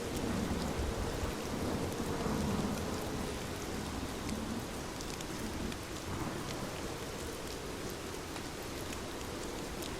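Steady rain falling, with individual drops ticking sharply now and then. A low rumble of thunder swells in the first few seconds, then eases.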